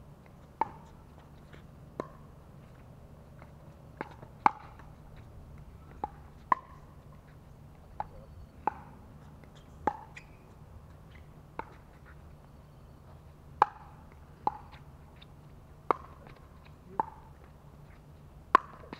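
Pickleball rally: paddles hitting the hard plastic ball, a string of about fifteen sharp, hollow pops at an uneven pace, half a second to two seconds apart, some much louder than others.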